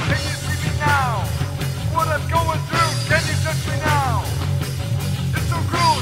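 Recorded rock song with a loud, steady band sound and a regular beat. Pitched notes slide downward over it several times.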